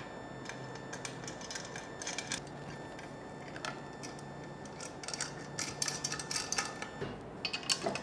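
Light metallic clicks and taps from fitting the handle and bolts of a metal motorcycle swingarm stand by hand, coming thicker in the second half, over a faint low hum.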